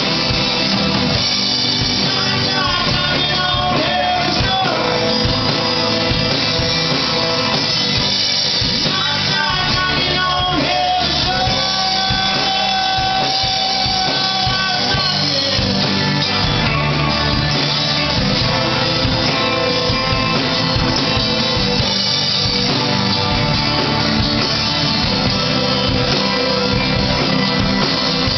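Live rock band playing: electric guitar and bass guitar with a singer holding long notes, loud and unbroken.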